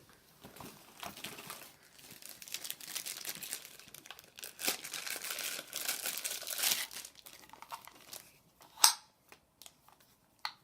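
Plastic packaging crinkling and rustling as it is handled and pulled off, then two sharp clicks near the end, the first the loudest.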